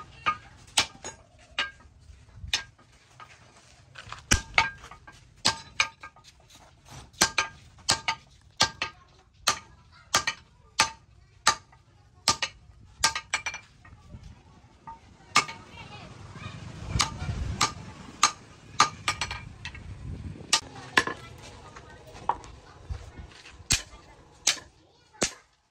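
Hand hammer forging a red-hot steel bar on an anvil: a steady run of ringing metal blows, about one to two a second. A low rumble swells up behind the blows in the middle.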